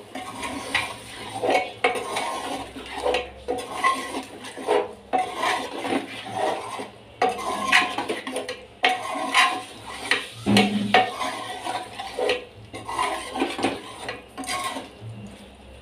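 Steel spoon scraping and clinking against the inside of a metal pressure cooker, in quick irregular strokes, as mutton liver pieces and spice paste are stirred and fried.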